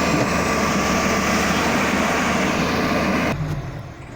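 Heavy vehicle engine running loudly and steadily with a faint whine. The noise cuts off suddenly a little over three seconds in, leaving a quieter low rumble.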